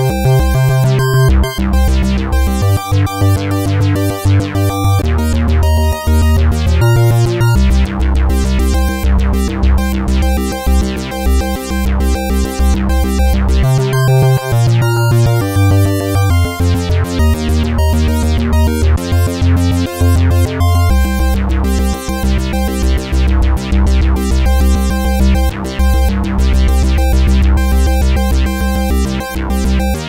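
Black Corporation ISE-NIN 8-voice analogue polysynth playing a preset dry, with no reverb or other effects: a busy run of short, quickly repeated notes over bass notes that change every second or two.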